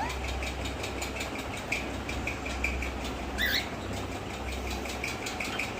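Pet parrot giving soft, short, high chirps and one quick swooping whistle about three and a half seconds in, over a steady low hum.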